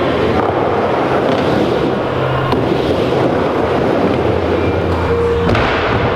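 Loud, steady rumbling of wheels rolling over plywood skatepark ramps, picked up by a moving camera. The sound changes abruptly about five and a half seconds in.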